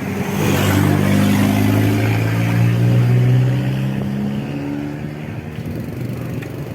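An engine running close by, a steady low drone that swells about half a second in and fades away over the last few seconds, as it would when passing.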